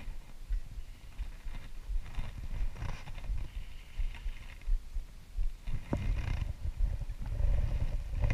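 Wind buffeting the camera microphone: an uneven low rumble that rises and falls, with a single sharp click about six seconds in.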